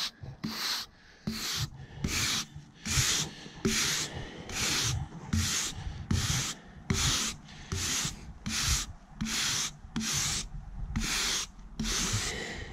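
Hand brush sweeping sawdust off the rough-sawn face of a freshly chainsaw-milled wooden slab. The bristles rasp across the wood in brisk, even strokes, a little more than one a second.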